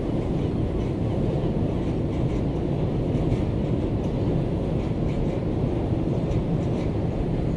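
A ship underway leaving port: a steady, low rumble of engine and hull noise, with faint short high ticks scattered through it.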